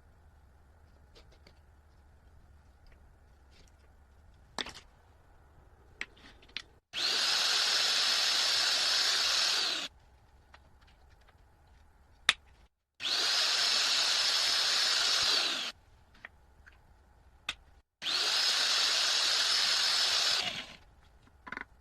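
An electric power tool's motor runs in three bursts of about three seconds each, with a steady high whine that rises as it spins up and drops as it stops. A few short clicks and knocks come between the bursts.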